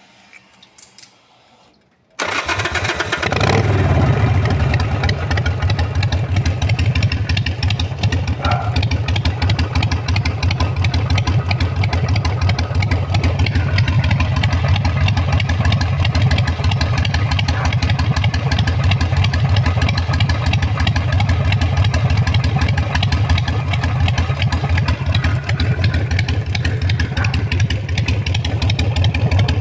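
Harley-Davidson Sportster 883R's fuel-injected V-twin starting suddenly about two seconds in, rising briefly, then idling with a steady pulsing beat. The injected engine is set up to sound like a carbureted one.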